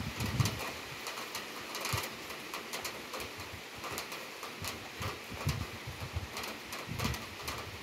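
Heavy rain shower falling, a steady hiss with many sharp ticks of drops striking nearby hard surfaces at irregular intervals. Short, low, muffled thumps come several times.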